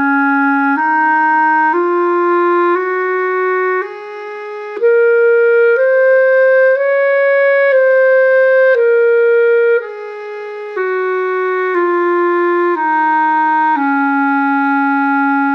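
B♭ clarinet playing a written E♭ major scale over one octave, up and back down, one note about every second, with the last, lowest note held a little longer. The throat-register B♭ on the way up and on the way down is quieter than the notes around it.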